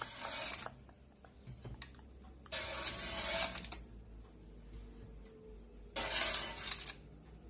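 Metal slotted spatula scraping across baking paper on a baking tray as it slides under cookies to lift them: three scrapes, one right at the start, one about two and a half seconds in lasting just over a second, and one about six seconds in.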